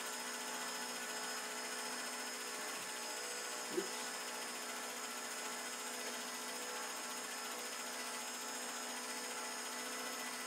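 Home-movie film projector running: a steady mechanical whir and clatter of its motor, fan and film transport, with one short tap about four seconds in.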